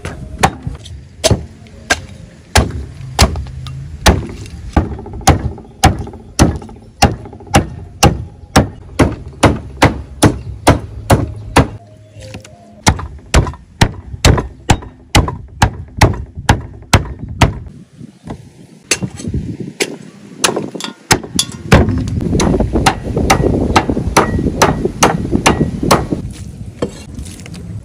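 A heavy cleaver chopping raw chicken into pieces on a wooden chopping block, in steady sharp whacks about two a second. Near the end the chops come quicker and closer together.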